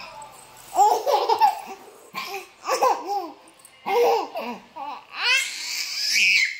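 Baby laughing in four bouts of giggles with short breaths between, the last one longer and higher-pitched.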